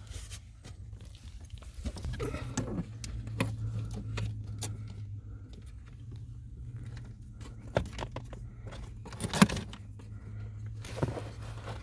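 Hand tools clicking and rattling as a wire is stripped and a connector fitted, with one sharp snap about nine seconds in, over a steady low hum.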